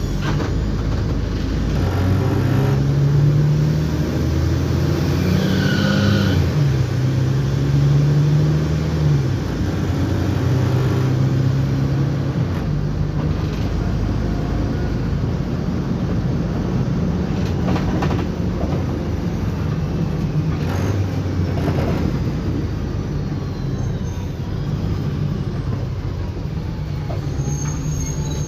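Mercedes-Benz O-500M city bus with a Voith automatic gearbox: the diesel engine pulls away, rising in pitch and dropping back twice in the first ten seconds as the gearbox shifts up, then runs steadily. A few short knocks come through in the second half.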